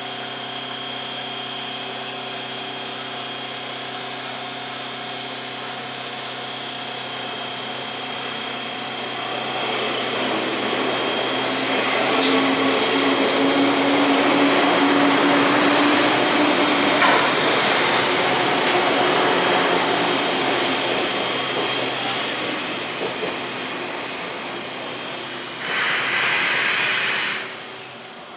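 JR East 185 series electric train at a platform: a steady electrical hum, then a brief high-pitched tone about seven seconds in. After that the train's motors and wheels build into a running rumble as it moves off, then ease. A short hiss of noise comes near the end.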